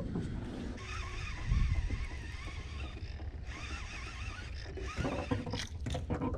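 A low steady rumble throughout, with a bird singing a warbling, repeated phrase for a couple of seconds early on. A few short clicks from a baitcasting reel follow a cast near the end.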